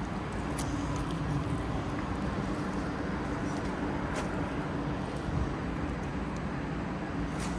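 City street traffic noise: a steady wash of passing vehicles with a low hum underneath, and a few short sharp clicks.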